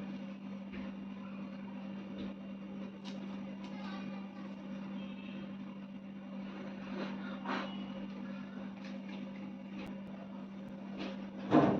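Small 9-volt DC water pump motor humming steadily while pumping water, with faint scattered clicks and taps.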